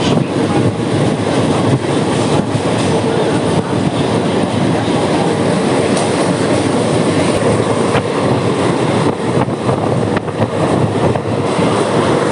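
Mumbai suburban local train running: a steady, loud rumble of wheels on the track, with scattered sharp clicks throughout.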